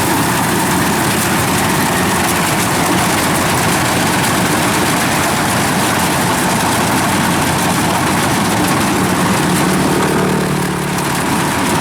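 Diesel engine of harvest machinery running steadily, with a pitched engine tone coming through about nine seconds in.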